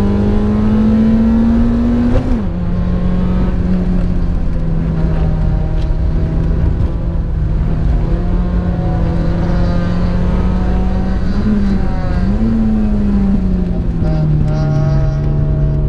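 Small hatchback's engine heard from inside the cabin at high revs, climbing, then dropping sharply about two seconds in as a gear is changed up, and holding steady. Near twelve seconds it rises briefly and then falls away as the throttle eases, with steady road and tyre noise on the wet track underneath.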